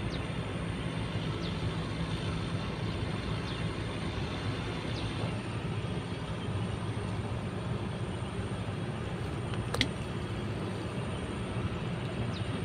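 A steady low hum like a motor running at a distance, unchanging throughout, with a faint high whine over it and a single sharp click about ten seconds in.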